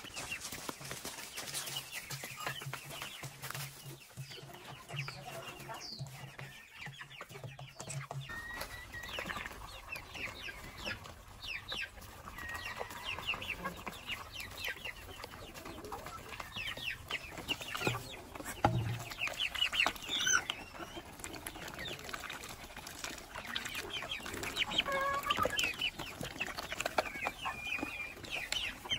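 A flock of hens clucking and giving short calls while feeding, with frequent light pecking taps.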